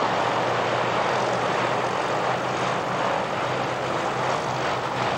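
Piston engines and propellers of a taxiing twin-engined de Havilland Devon, a steady drone.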